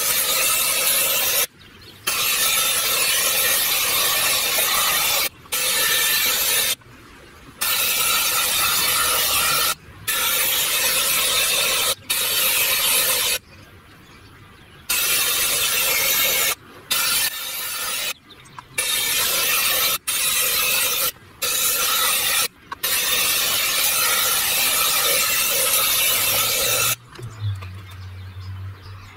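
Powder coating spray gun blowing powder with compressed air, a steady hiss in long trigger bursts broken by a dozen or so short pauses. It stops about two seconds before the end, leaving a low hum.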